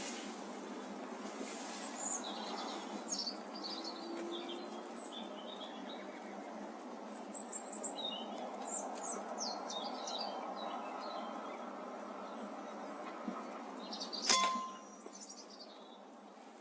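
Small birds chirping over a steady outdoor background hiss. About 14 s in comes a single sharp crack with a brief metallic ring, the loudest sound, fitting a sub-12 ft-lb air rifle shot.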